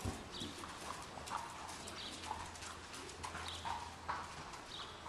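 Hoofbeats of a ridden horse trotting on the sand footing of a covered arena: a steady run of soft, even thuds.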